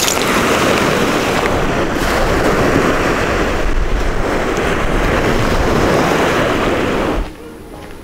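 Small sea waves washing onto a sandy shell beach, with wind rumbling on the microphone. The surf cuts off abruptly about seven seconds in, leaving a much quieter background.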